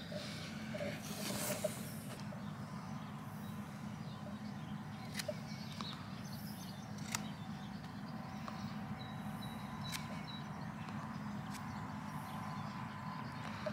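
Steady low hum of an idling vehicle engine, with a few faint sharp clicks as a knife pares the bark and wood of an olive scion.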